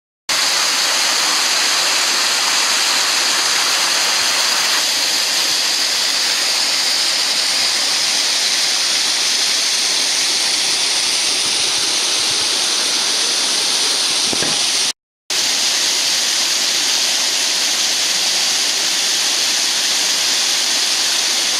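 Waterfall rushing steadily, a loud even wash of falling water, broken by a brief cut to silence about fifteen seconds in.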